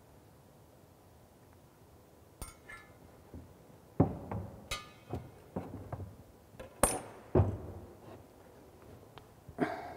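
A steel ruler and other tools being handled against a wall panel: a scattered series of sharp knocks and light metallic clinks, starting a couple of seconds in.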